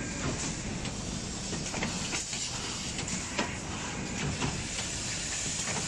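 Automatic non-stick pan stud-welding machine running: a steady mechanical din with irregular sharp clacks from its press heads and rotary table.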